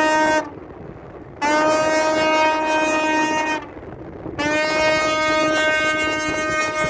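Tugboat horns sounding three long blasts, each a steady deep note with many overtones: the first cuts off just after the start, then two more of about two seconds each with short gaps between.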